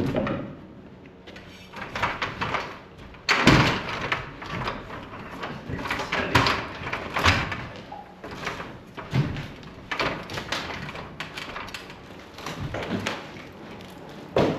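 Irregular knocks, bangs and clattering of demolition work on old wooden house framing, with the loudest bang about three and a half seconds in.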